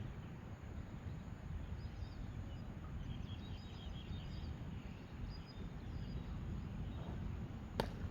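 Steady low outdoor rumble at a ballfield, with faint high chirping in the middle and a single sharp crack near the end.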